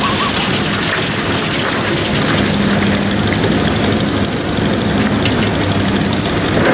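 Diesel engine of a tracked excavator running steadily as a low hum, under the even rush of a fast river.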